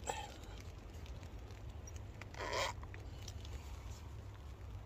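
Sipping from a lidded insulated mug of very hot chocolate: a small click at the start, then one short, breathy slurp about two and a half seconds in, over a low steady rumble.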